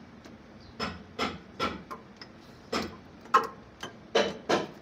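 Massey Ferguson tractor gearbox shift rails and forks being slid by hand, giving a series of short metal clicks and knocks, irregularly spaced and coming faster near the end, as the gears are engaged in turn.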